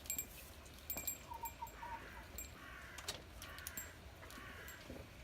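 Hens clucking quietly: a quick run of short clucks about a second in, then several drawn-out clucks, with a few light clicks and knocks in between.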